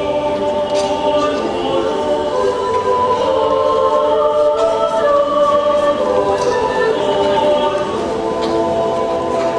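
Male choir singing slow, sustained chords in close harmony, swelling gently in loudness through the middle and easing near the end.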